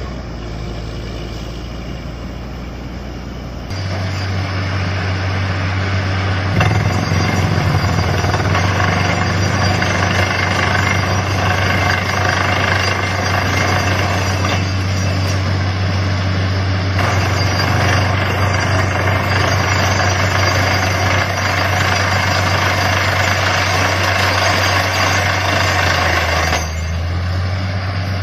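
Truck-mounted borewell drilling rig at work: a steady engine drone with a loud hiss over it. It gets louder about four seconds in and drops back a little near the end.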